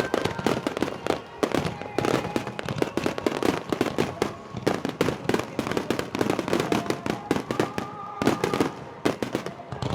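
Fireworks display: a dense, unbroken barrage of bangs and crackles, several reports a second.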